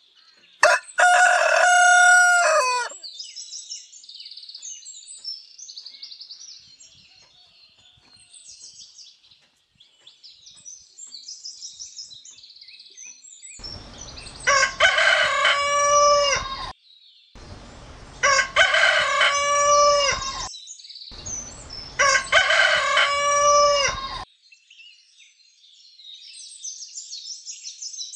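Rooster crowing four times: one crow about a second in, then three crows in close succession from about halfway through, each call falling in pitch at its end. Small birds chirp faintly between the crows.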